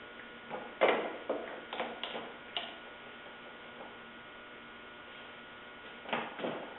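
Wooden workpiece and a square being set on a table-saw sled by hand: a few light knocks and taps in the first three seconds, the loudest about a second in, and a short sliding scrape near the end, over a faint steady hum.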